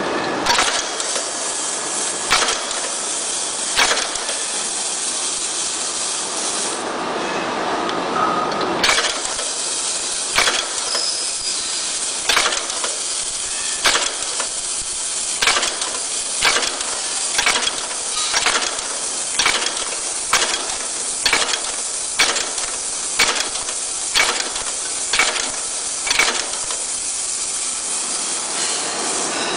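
Rivet setting machine pressing rivets into a leather piece: sharp metallic clacks, a few at first, then about one a second in a steady run from about a third of the way in, over a constant hiss.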